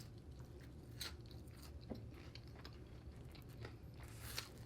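A person chewing food close to the microphone, with small wet mouth clicks over a low steady hum. A brief rustling, noisy sound comes about four seconds in.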